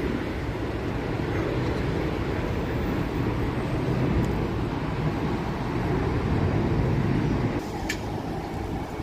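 Steady low engine rumble that eases off about seven and a half seconds in, with a brief click shortly after.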